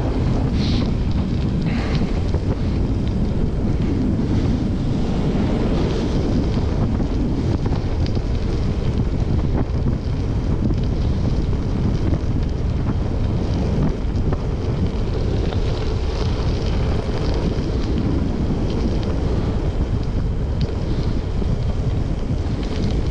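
Steady wind buffeting the microphone of a camera riding along on a bicycle at speed over a gravel road.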